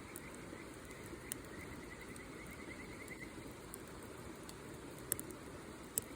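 Wood campfire burning with a steady low rustle and a few sharp pops and crackles, the loudest near the end. A faint high pulsing trill runs through the first half.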